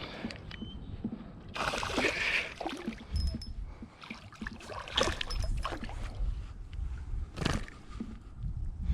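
Water splashing and sloshing, with a noisy burst about two seconds in and sharp knocks later on, over a low rumble of wind on the microphone.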